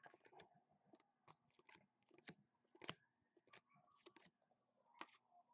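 Faint, irregular clicks and light rustles of football trading cards being handled and slid one behind another by hand.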